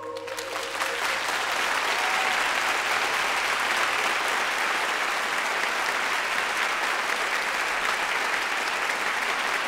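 Audience applauding, swelling in the first second as the last held chord of the choral performance dies away, then steady.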